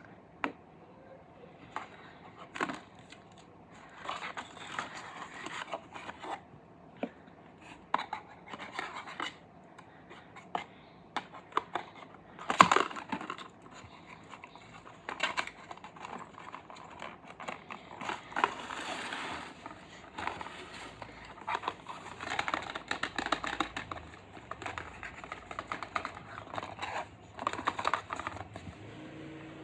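Happy Meal packaging being handled and opened: plastic and paper crinkling and tearing in several stretches, mixed with many sharp clicks and taps.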